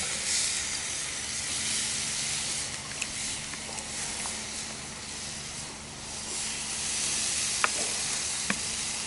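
Pork ribs freshly basted with honey marinade, sizzling on a grill grate over hot charcoal: a steady hiss with a few faint clicks.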